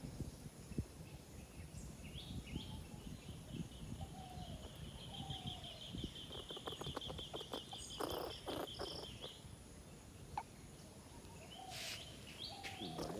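Birds calling: a few short falling whistled notes, and a rapid high trill that starts about two and a half seconds in and stops about seven seconds later. Faint clicks and a low rumble sit underneath.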